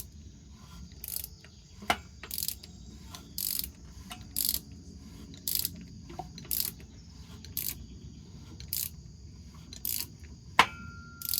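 A ratchet wrench clicks in short runs about once a second as a V8 engine is rolled over by hand, with two sharper pops from the engine, the loudest near the end followed by a brief metallic ring. The popping comes only with the valve train hooked up, and the owner suspects a collapsed lifter.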